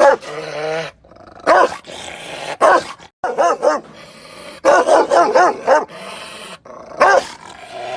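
Rottweiler barking angrily in rapid volleys of one to five loud barks, separated by short pauses.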